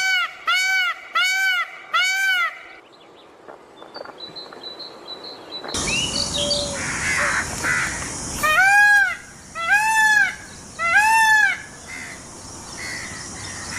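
Peacock (Indian peafowl) calling with loud, nasal honks that rise and fall in pitch: a quick run of short calls, about two a second, then a pause, then three longer, louder calls about a second apart.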